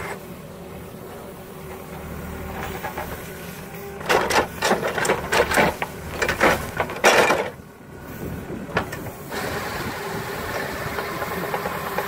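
Case 695 backhoe loader's diesel engine running while its hydraulic mowing bucket works in a weedy ditch, with a run of loud, irregular knocks from about four to seven and a half seconds in.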